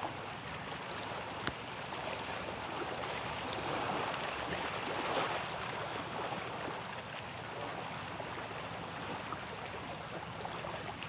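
Choppy sea water lapping and splashing close by in a steady wash, with one short sharp click about one and a half seconds in.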